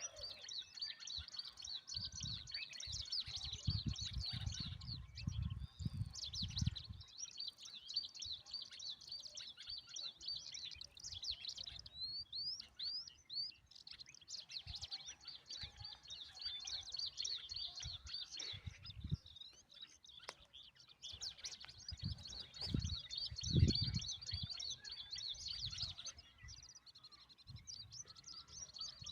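Small birds chirping rapidly and almost without pause, high-pitched and busy, with stretches of low dull thumps from about two to seven seconds in and again around twenty-three seconds in.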